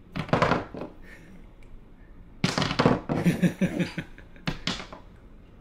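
A man and a small child laughing in short bursts, mixed with a few light knocks of a toy figure on a cardboard play set.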